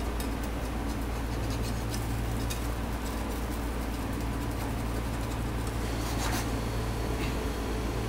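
Steady low hum of a commercial kitchen. Over it, a metal fish slice lightly scrapes and taps against a non-stick frying pan as a pancake cooks: several small clicks in the first few seconds and a short scrape about six seconds in.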